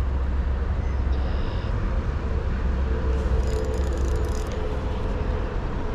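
A steady low rumble, with faint quick ticking from a spinning reel as it is cranked against a hooked trout about three seconds in.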